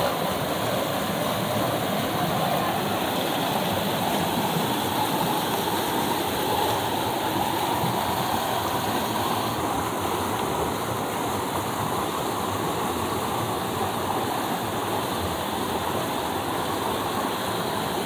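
Small river cascade: water pouring steadily over boulders and churning into the pool below, a continuous even rush of white water.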